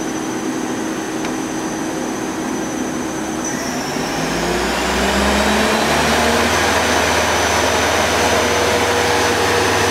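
Steady hum of running machine-shop machinery. About four seconds in, a deeper low hum joins and the sound grows a little louder, then stays steady.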